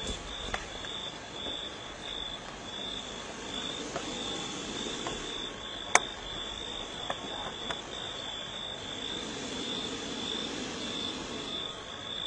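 Night insect chorus: a high-pitched chirr that pulses in even beats over a low hiss, with a few faint clicks and one sharp click about six seconds in.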